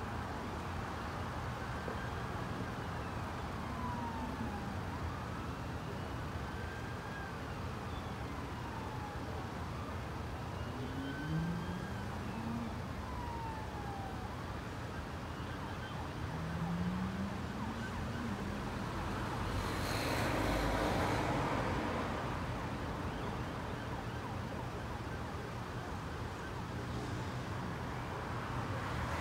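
Steady road traffic with an emergency-vehicle siren wailing, its pitch rising and falling slowly over and over. About two-thirds of the way in, a vehicle passes closer with a louder rush of noise.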